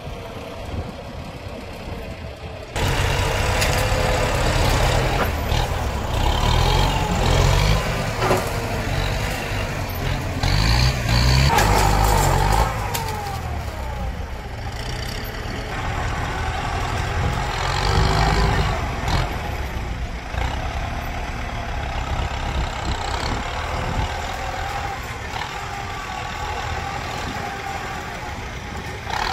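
Kubota tractor's diesel engine working under load as its front dozer blade pushes against a small tree, with scattered cracks and knocks as the trunk and roots give way. The engine gets much louder about three seconds in.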